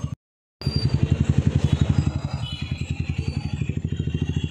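A nearby vehicle engine running with a rapid, even throb of about ten beats a second. The sound drops out for half a second just after the start.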